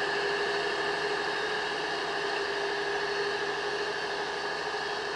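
Steady mechanical hum and whine over a hiss from a passenger train rake reversing slowly away, with its onboard machinery running. It fades slightly toward the end.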